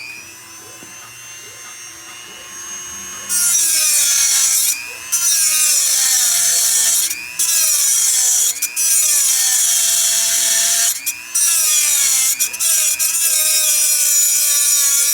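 A high-speed rotary tool with a cutting wheel spins up and runs freely. From about three seconds in it grinds through the heads of the rivets holding the wiring holders on a motorcycle frame. Its whine drops in pitch each time the wheel bites into the metal and rises again in the brief pauses between cuts.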